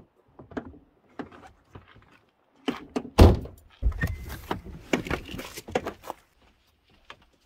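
SUV door being worked: small clicks of the handle and latch, a heavy door thunk about three seconds in, then a run of knocks and scuffs as the door opens and shuts.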